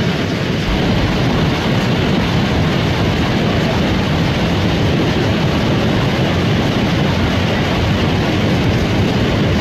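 Godavari River in flood: fast, turbulent floodwater rushing past, a loud, steady rumble of churning water.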